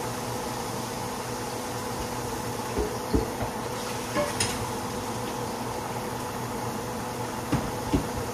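Steady hum and faint hiss from a saucepan of hot frying grease on an electric stove, with a few light knocks: two about three seconds in, one or two around four seconds, and two near the end.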